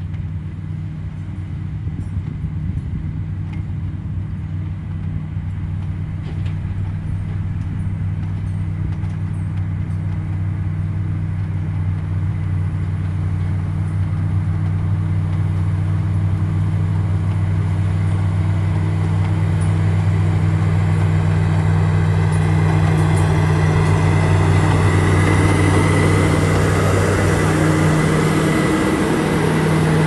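Komatsu GD655 motor grader's diesel engine running steadily under load while its blade pushes loose soil, growing louder as the machine draws close and passes in the last few seconds.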